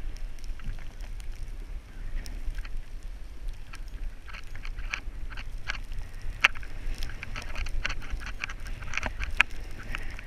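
Wind rumbling steadily on the microphone of a camera moving down a snowy ski slope. From about four seconds in there are scraping noises and many scattered sharp clicks from the ride over the snow.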